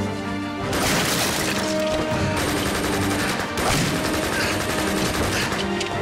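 Rapid, sustained gunfire that starts about a second in and runs most of the way through, over film music with long held notes.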